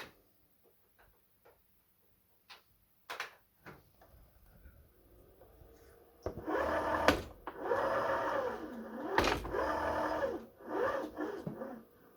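Small motor-driven mechanism running in several bursts from about six seconds in, its whine repeatedly rising and falling in pitch, after a few scattered clicks. This is the noise the owner complains of, coming from the machine.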